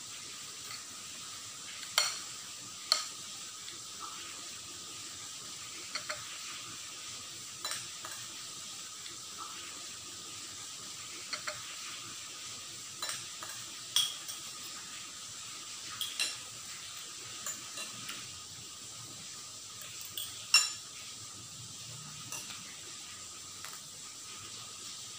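Metal spoon and fork clinking and scraping against ceramic bowls while eating, sharp clinks every second or two, over a steady hiss.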